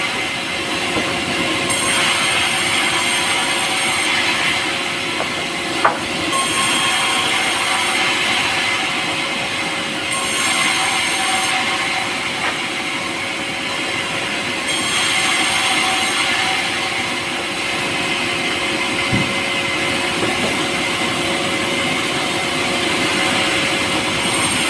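A power saw running steadily as it cuts through soft, light pulai wood. Its hiss grows brighter and duller in turns every few seconds, with one sharp click about six seconds in.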